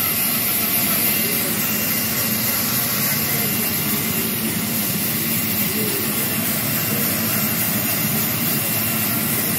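Sawmill log band saw running, a steady, loud mechanical noise with a low hum and no breaks, as a log on its carriage is sawn into planks.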